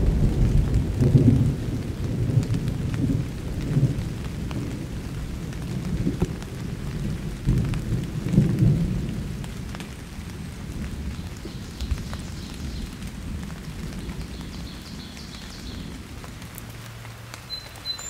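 Thunder rumbling in long rolls that swell several times and die away toward the end, over steady rain.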